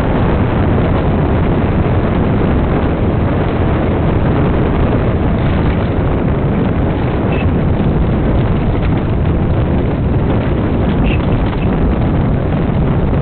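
Dune buggy driving along on sand: a loud, steady rumble of its engine mixed with wind buffeting the microphone.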